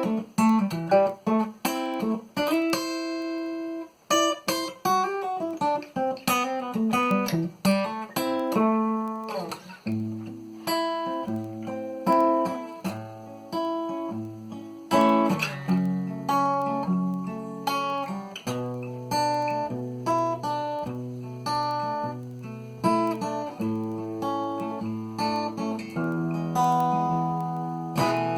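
Cort GA5F-MD acoustic guitar, with a solid spruce top and solid Madagascar rosewood back and sides, played fingerstyle. It opens with plucked notes and chords, and from about ten seconds in a melody runs over a repeating low bass note.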